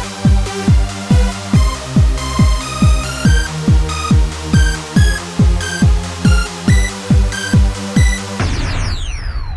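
Electronic dance music with a fast, steady kick drum, about two beats a second, under a repeating synth melody. Near the end the beat stops and gives way to a noisy sweep with falling tones.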